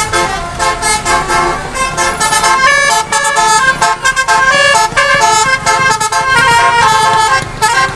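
Multi-tone 'telolet' bus horn, a basuri-type air horn, playing a quick tune of stepped notes over a low rumble.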